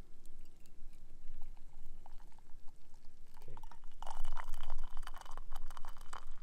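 Hot coffee pouring from a blue enamel percolator into a stainless steel mug: a splashing stream that grows loud about three seconds in and stops just before the end.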